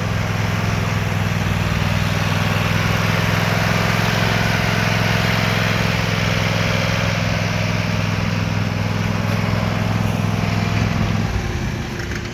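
Cub Cadet RTZS-42 zero-turn mower engine running steadily, its steady hum dropping away about eleven seconds in.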